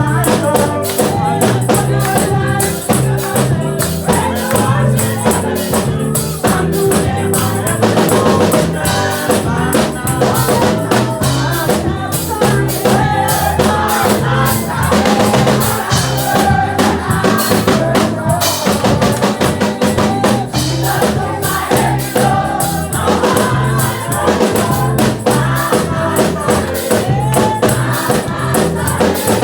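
Upbeat gospel music: voices singing together over a steady beat, with a tambourine shaken in rhythm.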